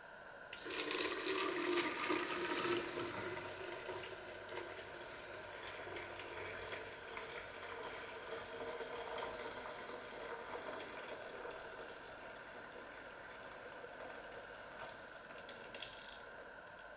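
Liquid poured from a stainless steel pot through a funnel into a plastic measuring jug. A splashing stream starts about half a second in, is loudest for the first couple of seconds, then slowly thins to a faint trickle.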